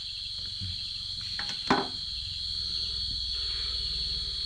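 Steady, high-pitched chirring of a night chorus of crickets, with a single sharp knock about a third of the way through and a low hum coming in after it.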